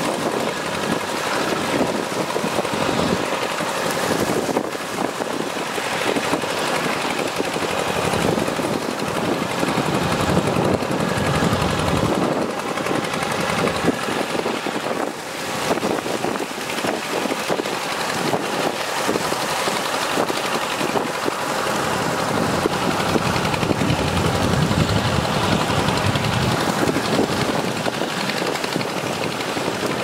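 Engines of farm machines working a flooded rice paddy, running steadily with a fast, uneven rattle.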